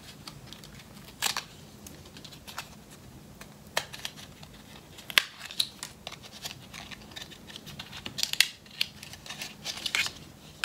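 A small cardboard makeup box being handled and opened by hand: irregular light clicks, taps and scrapes.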